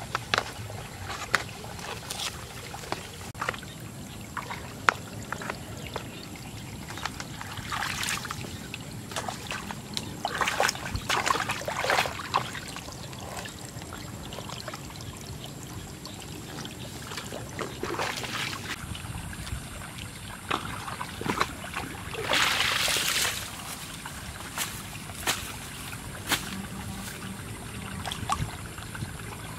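Muddy water trickling and splashing in a shallow ditch, while a long-handled digging tool scrapes and scoops through wet mud, making several splashy surges and scattered sharp knocks.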